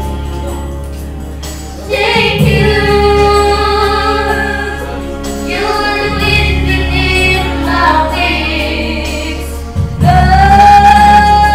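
Two girls singing a duet into handheld microphones, holding long notes. The voices come in strongly about two seconds in, ease off briefly twice, and swell into a loud held note near the end.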